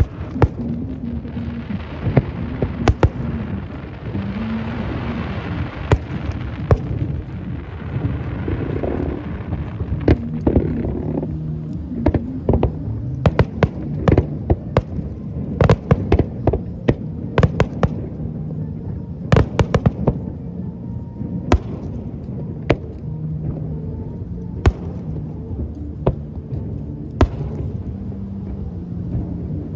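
Aerial fireworks bursting: dozens of sharp bangs at an uneven pace, with a crackling hiss over them for the first ten seconds or so.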